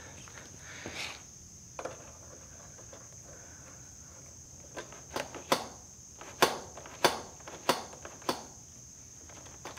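A steady high insect trill, and from about five seconds in a run of six sharp clicks roughly half a second apart, from work at the handlebar end of a Kawasaki Ninja ZX6R, where a green aluminium bar-end weight is being tightened in.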